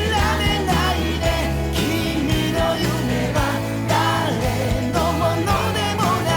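A pop-rock song with a sung melody over bass and a steady drum beat.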